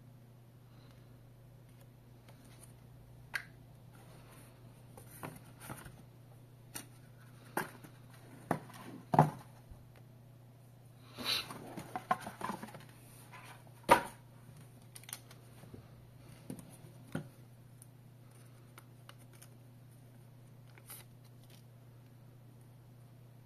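Hands handling a paper manual, a cardboard box and the earphones' cable: irregular light clicks, knocks and paper-and-cardboard rustles, busiest in the middle with two sharper knocks, over a steady low hum.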